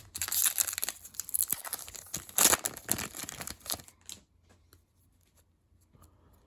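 An Upper Deck hockey card pack being torn open, its wrapper crinkling and crackling, with the loudest rip about two and a half seconds in. The crackling stops about four seconds in.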